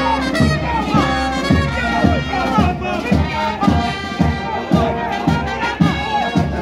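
Brass band playing, with a steady drum beat about twice a second, over crowd noise.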